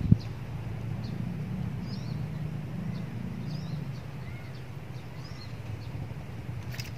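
Outdoor ambience: small birds chirping briefly every second or so over a steady low hum, with one sharp click right at the start.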